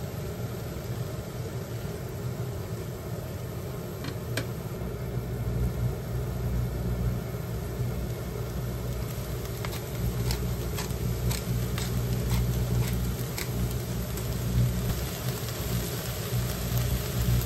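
Broccoli, bacon and onion cooking in a stainless pan while a spatula stirs them, knocking and scraping against the pan, with a run of sharp clicks in the second half. Under it a steady low rumble.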